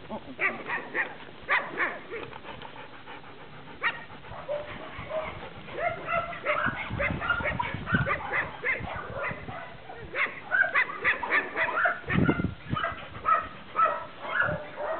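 Dog barking in fast runs of short, sharp barks and yips, several a second, with brief pauses between runs.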